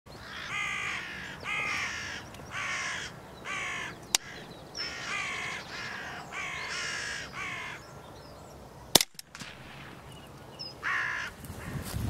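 Hooded crows cawing: two runs of four harsh caws at about one a second, then a single caw near the end. A sharp crack comes about four seconds in, and a louder one about nine seconds in.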